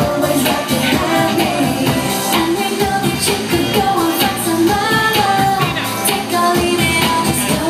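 Pop song with singing and a steady beat, played loud over a stage sound system.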